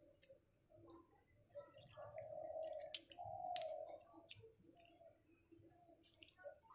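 Faint clicking of snail shells knocking together in a cupped hand while the meat is picked out of boiled pond snails with a safety pin. A few sharper clicks come about three seconds in.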